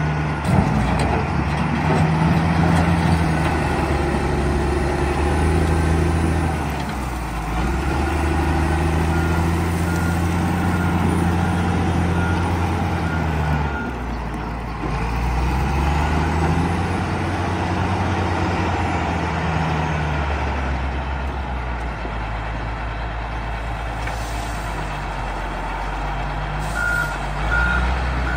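Caterpillar 966F wheel loader's diesel engine working, its revs rising and falling again and again as it is driven under load. A reversing alarm beeps for a few seconds about halfway through and again near the end.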